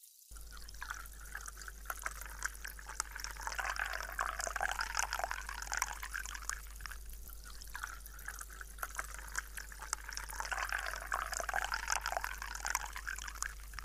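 A carbonated drink poured into a glass over ice, the pour hissing and fizzing with a dense fine crackle of bursting bubbles. It swells twice, about four seconds in and again about ten seconds in.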